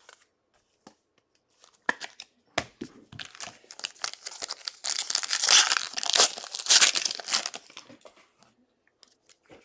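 A trading-card pack being torn open by hand, its wrapper crinkling: a few small rustles at first, then a dense stretch of tearing and crinkling about halfway through that dies away near the end.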